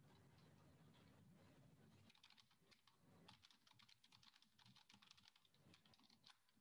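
Faint computer keyboard typing: quick, irregular keystrokes.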